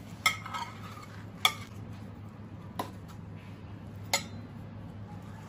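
Metal fork clinking against a ceramic plate, about four sharp clinks spaced roughly a second apart, over a steady low hum.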